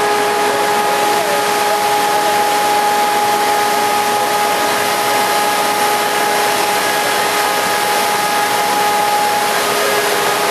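Ship's engine-room machinery running: a loud, steady drone with a steady mid-pitched hum in it.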